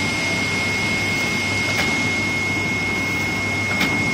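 Rubber extrusion production line machinery running steadily: a dense noise with a steady high whine, and a light click about every two seconds.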